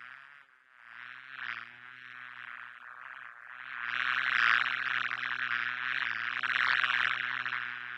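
Honey bee buzzing: a droning hum that wavers slightly in pitch and grows louder about four seconds in.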